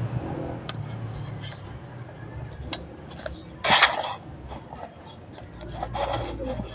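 Handling and scraping noises from work on a washing machine, with one short loud scrape a little past the middle and a smaller one near the end, over a steady low rumble.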